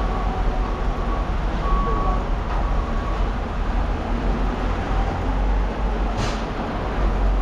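A vehicle's engine running steadily while its reversing alarm beeps about once a second, stopping about three seconds in; a short hiss follows near the end.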